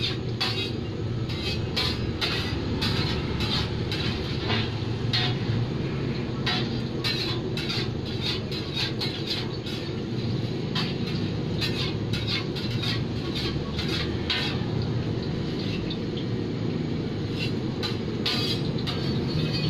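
Egg martabak frying in oil on a large flat metal pan, a metal spatula clinking and scraping against the pan in short sharp strokes several times a second, over a steady low rumble.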